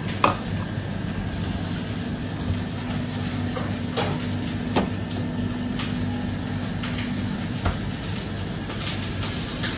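Steady mechanical drone with a low hum, the background noise of a working kitchen, broken by a few light knocks and clinks. The sharpest knock comes just after the start, with others about four, five and eight seconds in.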